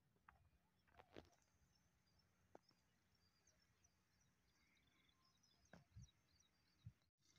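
Near silence: faint outdoor ambience with a few distant bird chirps and occasional light clicks.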